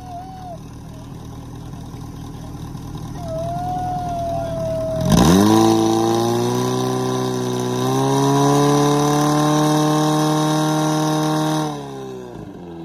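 Portable fire pump engine running slowly, then opened up suddenly about five seconds in, rising in pitch to full speed. It runs steadily at high revs to drive water through the hoses, then drops back near the end.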